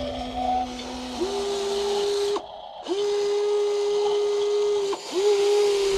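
Electric gear motors of a radio-controlled toy excavator whining as its arm and boom move. A steady whine starts with a quick rise in pitch about a second in, cuts out twice briefly and starts again each time.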